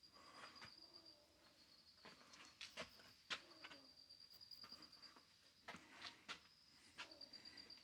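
Faint, steady trill of crickets chirping at night, with a few soft clicks and knocks scattered through.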